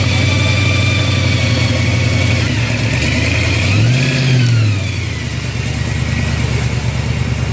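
Blown 1969 Camaro Z28's supercharged V8 running at idle, blipped once into a short rev about four seconds in that rises and falls back, with a high whine rising and falling along with it.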